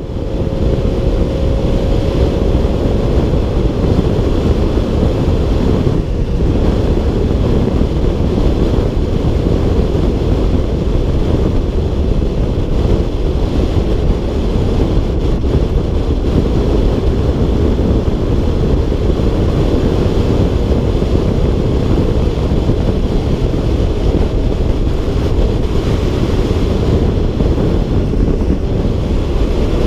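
Motor scooter being ridden at speed, with wind rushing over the camera microphone over the engine running underneath. A faint engine whine falls slightly in the first few seconds and rises again near the end.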